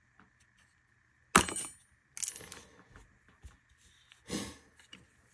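Metal parts of a Springfield Armory Prodigy pistol clicking and clinking as it is handled and taken apart. A sharp metallic click with a brief ring comes about a second and a half in, followed by smaller rattling clicks and another clatter past the four-second mark.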